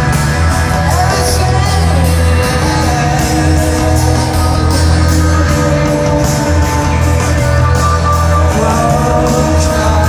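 Rock band playing live in a concert hall: heavy held bass notes under guitars, a sung vocal line and steadily ticking cymbals.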